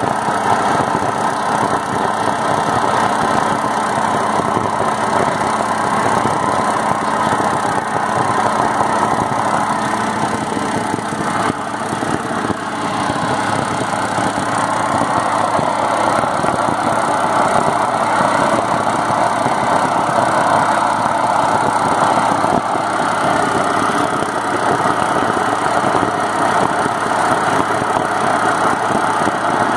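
Preheating gas burner of an SKV thermit rail-welding set burning steadily inside the mould at the rail joint, a loud, even roar that runs on without a break.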